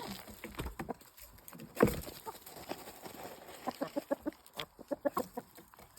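Chickens clucking quietly in short calls, with one sharp thump about two seconds in.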